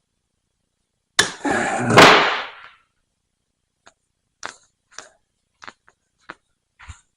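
A loud clatter with a hard knock about a second in, then six or so short, sharp clicks and taps well under a second apart: hand tools at work taking the shaft and bearing out of a hydraulic vane pump.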